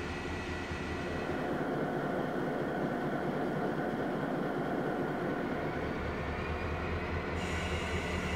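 Diesel freight locomotives' engines running with a low, steady rumble.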